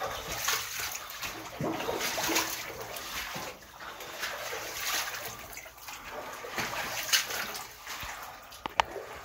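Footsteps and shuffling of people walking along a narrow rock-cut tunnel, an irregular run of scuffs, with a couple of sharp clicks near the end.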